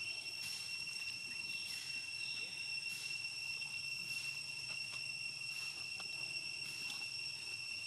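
Insects calling in a steady, continuous high-pitched drone, with a faint pulse about once a second.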